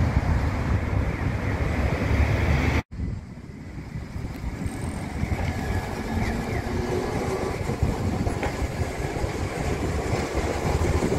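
Road traffic for the first few seconds, cut off abruptly; then a Kagoshima City Tram streetcar, car 602, rolls past close by, its wheels rumbling on the street track.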